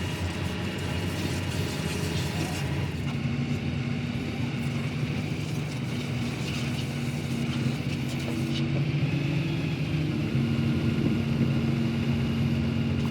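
A machine or engine running steadily with a low hum, growing a little louder near the end.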